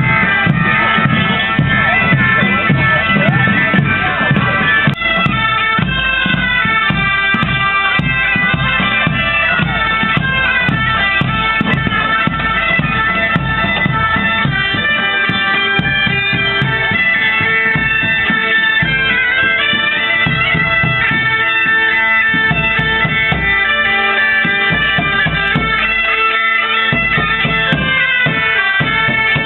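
Medieval-style bagpipes playing a lively tune over a steady drone, with large drums beating along underneath.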